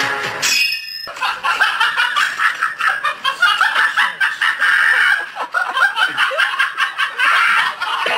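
Person laughing, a long run of short, quick laughs that starts about a second in.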